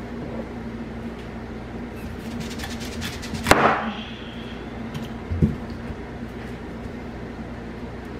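Large kitchen knife chopping through a thick broccoli stalk onto a plastic cutting board: one loud crunchy cut about three and a half seconds in, then a dull knock a couple of seconds later, with a few light taps.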